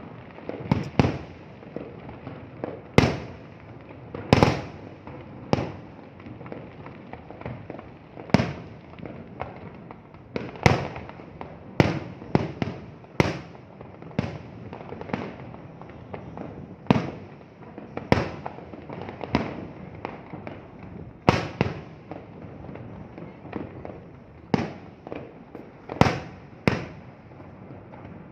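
Aerial fireworks shells bursting: about twenty sharp bangs at uneven intervals, each trailing off in a short echo, over a steady background murmur.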